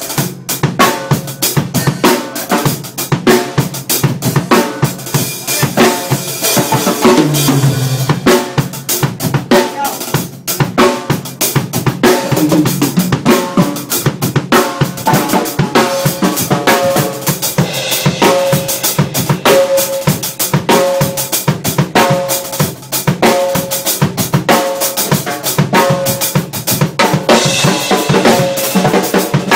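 Acoustic drum kit played fast and hard without a break: rapid snare, tom and bass drum strokes with cymbal crashes in dense shred-style fills.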